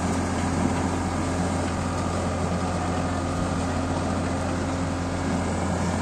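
Tractor's diesel engine running steadily while its rear-mounted, hydraulically driven rotary road broom spins, the bristles sweeping dust and grit off a gravel road.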